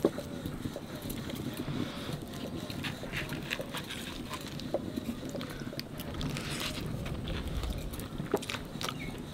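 Eating by hand from a steel plate: scattered small clicks and soft tearing as fingers break roti and scoop curry against the plate, with chewing, over a steady low background.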